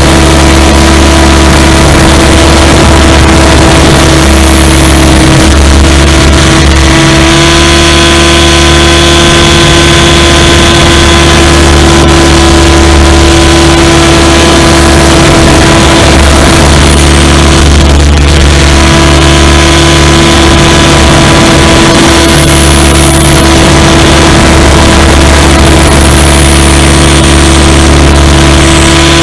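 SAB Goblin 500 electric RC helicopter in flight, heard close up from on board: a steady motor and drive whine over a loud rush of rotor wash. The whine shifts slightly about seven seconds in and again near the end, as the load changes.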